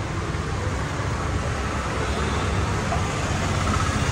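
Steady street traffic noise with a low engine rumble.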